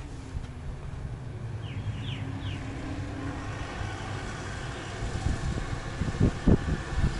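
Low steady rumble of a car driving past, with some wind on the microphone, slowly growing louder. Three short high chirps come about two seconds in, and a few dull thumps from inside the LandCruiser come near the end as someone moves about in the back.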